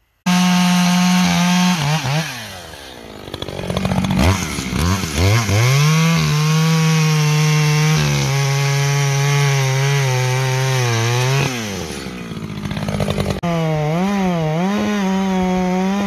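Echo two-stroke chainsaw at full throttle, cutting low into a standing tree's trunk. The engine note sags and recovers about two seconds in, then holds lower and steady through a long stretch of cutting. It drops again near the end and comes back with a wavering pitch.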